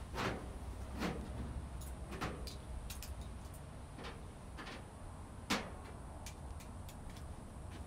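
Hand tools knocking and clinking at a workbench, about five separate sharp knocks with several fainter ticks between them, the loudest a little past halfway, over a steady low hum.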